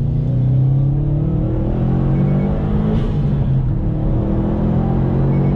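Subaru WRX STI's turbocharged flat-four engine accelerating under load. The engine note climbs, drops briefly about three seconds in, then climbs again.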